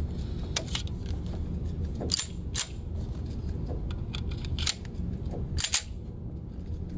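A stainless Colt Gold Cup 1911 in .45 ACP being handled and loaded: several sharp metal clicks and clacks, some in quick pairs, as a magazine is seated and the pistol is worked.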